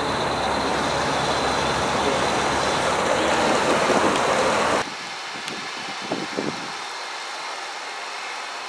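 Gauge One model locomotive and train running on the track, a steady rumble and hiss that grows a little louder, then cuts off abruptly about five seconds in. After it comes a much quieter background with a few faint clicks.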